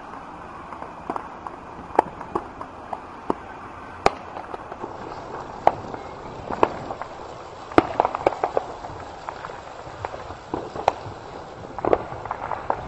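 Firecrackers popping: scattered sharp cracks at irregular intervals, bunched in a quick cluster about eight seconds in and again near the end.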